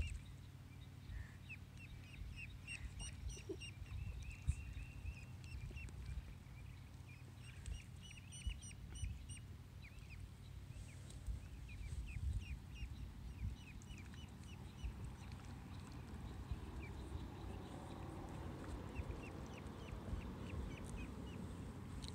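Ducklings peeping: runs of short, high, falling chirps, coming less often in the last few seconds, over a low steady rumble.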